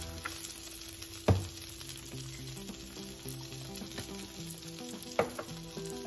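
Buttered sourdough grilled cheese sandwich sizzling steadily on a stovetop griddle. Two sharp knocks land about a second in and about five seconds in; the first is the loudest sound.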